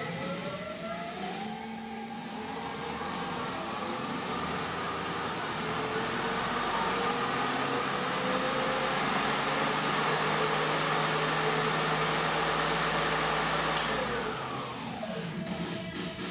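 Wabeco D6000 lathe driven by a three-phase motor on a frequency inverter, through belts and the countershaft: the motor's pitch rises as it ramps up over the first couple of seconds, then runs steady with a high whine, and falls away as it ramps down to a stop near the end.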